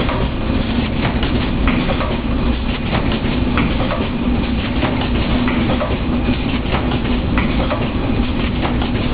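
HW-264B/HW-266B high-speed horizontal automatic packaging machine running, a steady mechanical clatter over a hum, with repeated clicks from its moving parts.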